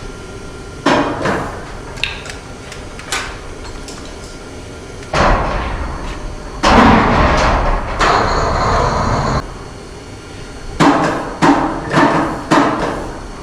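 Metal knocks and clanks from workshop tools and parts on a Honda BF60 outboard motor as its engine is taken off. There are single knocks in the first few seconds, a longer scraping stretch in the middle, and a quick run of four or five clanks near the end.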